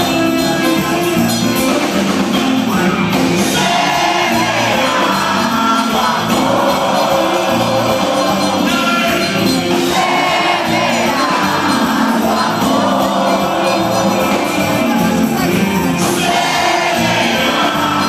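Live band playing a song with a singer's voice over it, loud and unbroken.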